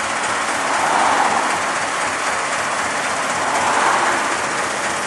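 Puffing Billy novelty road train running along the street close by: a steady rushing noise that swells twice, about three seconds apart.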